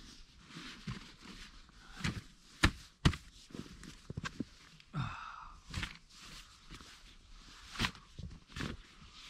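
Folding camp chair being set up: sharp clicks and knocks of its pole frame snapping into the seat, the loudest around three seconds in and again near the end, with rustling and shuffling in snow.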